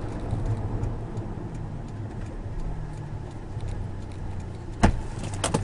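Car engine running steadily, heard from inside the cabin as a low rumble, with a sharp knock near the end.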